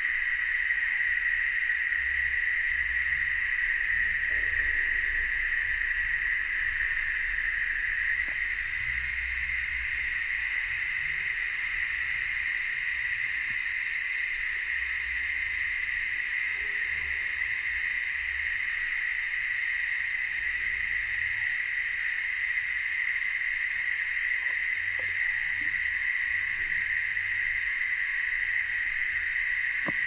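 Steady, unbroken high drone of a cicada chorus in summer parkland, with faint low rumble beneath.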